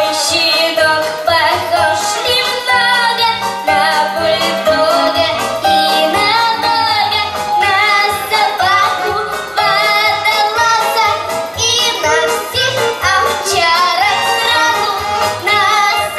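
A young girl singing a children's song into a handheld microphone, her voice bending and wavering in pitch, over instrumental accompaniment with a steady beat.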